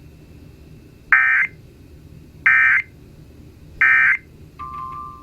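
Three end-of-message bursts of the EAS SAME digital header from NOAA Weather Radio: short, loud bursts of data tones, each about a third of a second long and about 1.3 s apart, over low background noise. Near the end a steady beep tone starts.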